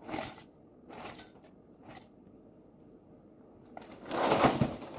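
Dry bran flakes and sultanas poured from a cereal box's plastic liner into a ceramic bowl: short rattling, rustling spurts, then a longer, louder one near the end.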